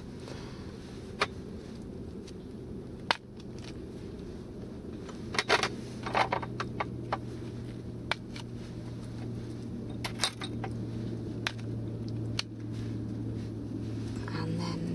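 Scattered light clinks and taps of a knife, bowls and a wooden cutting board while mushroom caps are hollowed out by hand, loudest in a short cluster about five to six seconds in, over a steady low hum.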